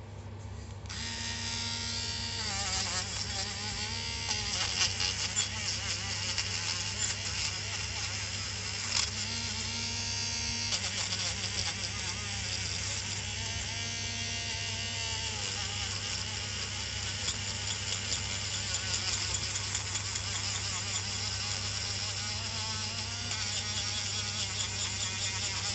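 A small handheld rotary tool running at high speed with a steady high-pitched buzz, its spinning wheel grinding against a diecast metal car body. Its pitch dips and recovers a few times as the wheel is pressed into the metal.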